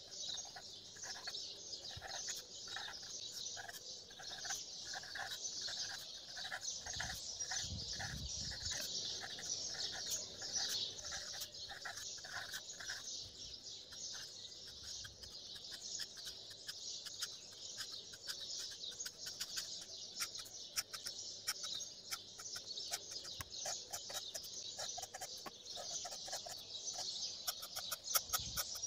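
Birds chirping in a steady, dense chorus, with one call repeating about twice a second through the first half. A black marker scratches on paper, in quick short strokes near the end.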